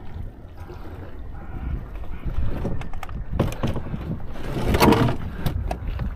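Wind buffeting the microphone, with knocks and scrapes from a kayak being handled on rock and climbed into. A louder rush of hull or gear against the rock comes about five seconds in.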